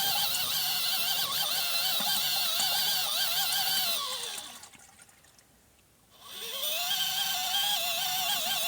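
12 V portable foldable washing machine running on its wash cycle, its motor giving a wavering whine over the churning water. About four seconds in the motor winds down and stops, then a second or two later it spins back up in the opposite direction.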